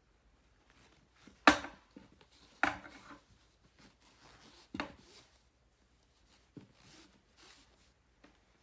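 Three sharp knocks, the first the loudest, with quieter handling and rustling noises between and after them.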